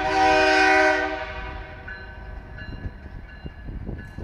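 Diesel locomotive air horn sounding for the grade crossing: a loud multi-note chord that ends about a second in, over a low engine rumble.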